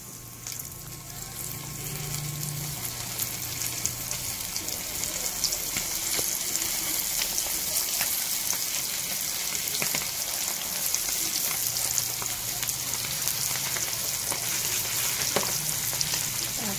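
Flour-coated chicken skin deep-frying in hot oil in a wok: a steady sizzle full of small crackling pops. It builds over the first couple of seconds, then holds.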